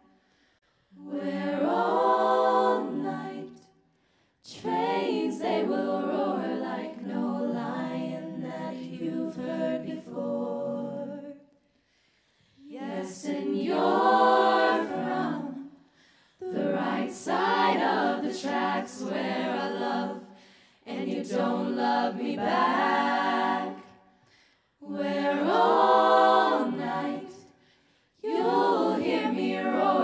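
Women's a cappella group singing in close harmony, holding chords in phrases a few seconds long, with short silent breaks between the phrases.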